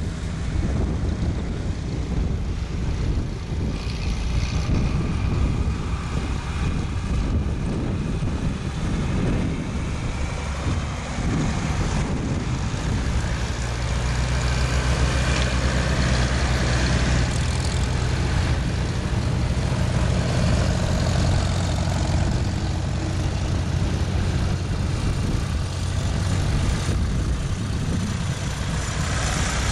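Farm tractor engines running as a line of tractors rolls by. A steady low engine drone becomes stronger and steadier from about halfway through.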